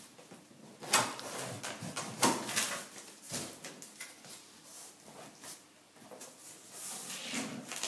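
A cardboard box being opened by hand: packing tape torn off the lid and the cardboard flaps pulled open, a string of short scraping and tearing noises. Plastic packing inside the box is rustled near the end.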